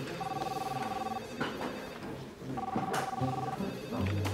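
Telephone ringing with an electronic trilling ring: two rings of about a second each, roughly a second and a half apart.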